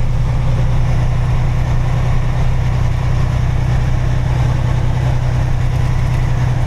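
A vehicle engine running steadily at low revs: a constant low hum with an even pulse and no change in pitch.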